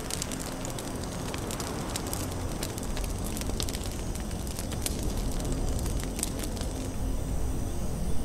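Campfire crackling and popping in irregular sharp snaps over a low, steady rumble.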